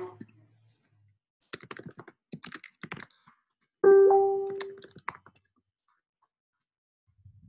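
A quick run of computer keyboard and mouse clicks, then a single loud electronic chime that starts suddenly about four seconds in and rings out, fading over about a second, followed by a few more clicks.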